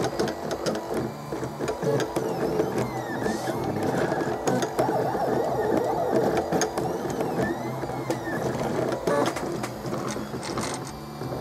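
3D printer running a print, its frame rattling away as the print head moves, with many small clicks and faint whines from the stepper motors rising and falling in pitch.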